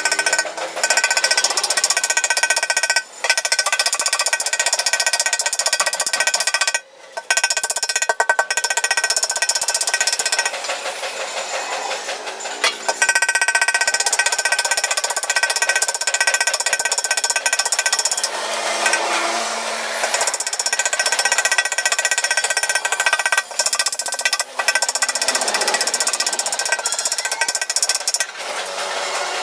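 Rapid, continuous hammering on a steel motorcycle fuel tank, the sheet metal ringing under the blows as accident dents are beaten out. There are short pauses about 3 and 7 seconds in.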